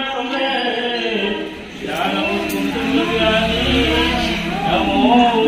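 A song with a singing voice over music.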